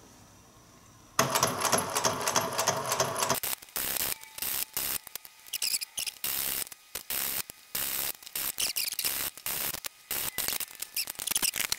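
Sewing machine stitching a leather seam: one steady run of about two seconds beginning about a second in, then a long series of short stop-start bursts of stitching as the work is guided along.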